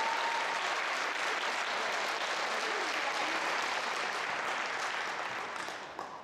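Audience applauding: steady clapping that fades away in the last second or so.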